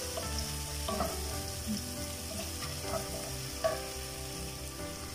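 Chopped tomato and onion sizzling as they fry in oil in a non-stick frying pan, with a wooden spatula stirring through them and a few soft knocks against the pan.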